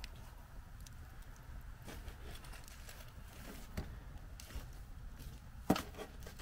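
Wood fire crackling in a steel fire pit, with scattered sharp pops and one louder knock near the end, over a low background rumble.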